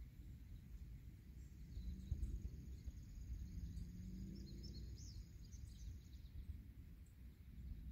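Faint outdoor ambience: a low, uneven rumble with birds chirping softly in the background.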